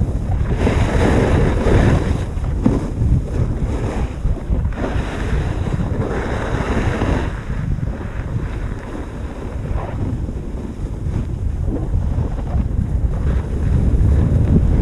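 Wind buffeting a GoPro's microphone during a downhill ski run, a steady low rumble, with skis hissing and scraping over packed snow that swells several times with the turns.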